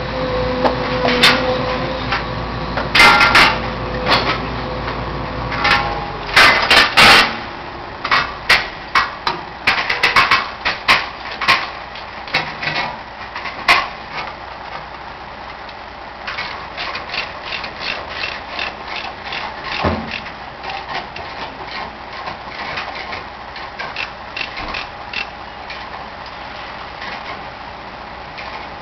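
Demolition noise: a machine engine runs steadily and stops about six seconds in. A cluster of loud crashes follows, then many scattered knocks and clanks of debris and machinery.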